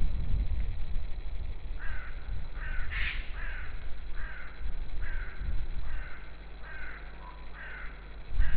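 A bird calling repeatedly: a series of about ten short, harsh calls roughly two-thirds of a second apart, beginning about two seconds in, the third one the loudest. A low steady rumble runs underneath.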